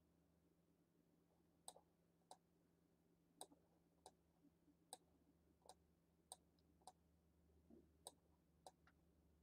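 Faint computer mouse clicks: about ten single clicks, spaced roughly half a second to a second apart, over a low steady hum.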